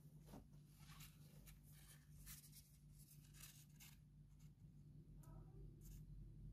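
Faint, scattered rustles and crinkles of folded paper as paper airplanes are handled and shifted in the hands, over a low steady hum.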